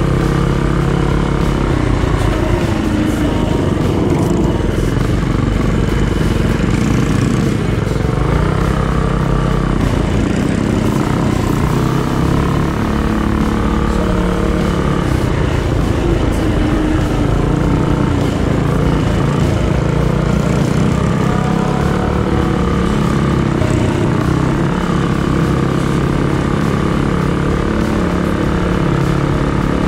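Small single-cylinder minibike engine running under steady throttle, its pitch rising and falling a little as the bike rides along.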